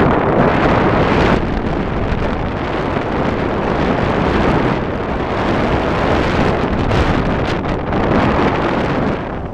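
Loud, steady wind noise from the airflow buffeting a pole-held camera's microphone in flight under a tandem paraglider.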